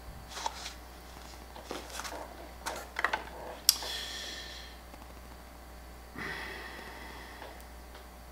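Small clicks and taps of a resin buzz-bait lure being handled, then twice a sharp flick followed by a brief ringing whir as its metal spinner wings are spun, each fading within a second or so.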